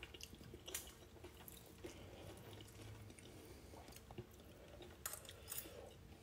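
Near-silent eating: faint chewing with a few soft clicks of a fork against a ceramic dish of noodles.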